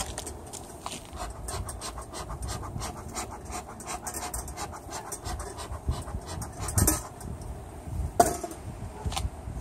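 Bee smoker's bellows being squeezed over and over, giving a run of short, quick puffs of air.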